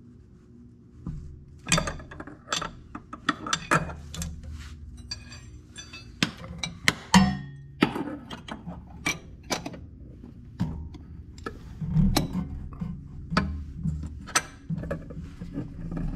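A socket ratchet on a swivel extension clicking in short irregular runs, with sharp metal clinks and knocks, as bolts at the driveshaft flange are worked. A steady low hum runs underneath.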